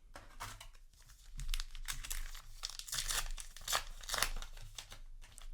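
Crinkling and tearing of a foil trading-card booster pack wrapper, a run of short crisp rustles, as the pack is torn open and handled.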